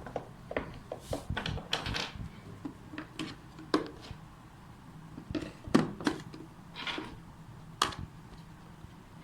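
Hand tools being handled: irregular clicks and knocks, the loudest a little before the middle and near the end.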